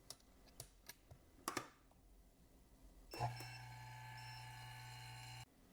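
A few light clicks of handling and button presses on a screen-laminating machine, then its motor or pump starts up about three seconds in and hums steadily for a little over two seconds before cutting off suddenly. The machine is not completing its laminating cycle.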